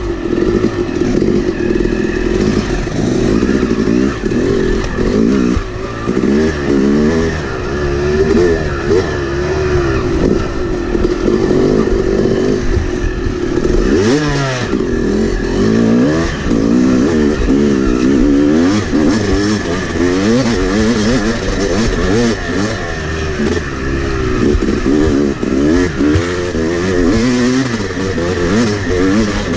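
Yamaha YZ250X two-stroke dirt bike engine, heard close up from the bike itself, revving hard and easing off again and again as it rides a trail. About halfway through, the pitch drops sharply, then climbs back up.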